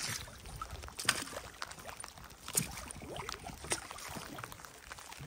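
Small rowing boat on a lake: irregular water splashes and drips, with a few louder strokes about a second apart, in light rain.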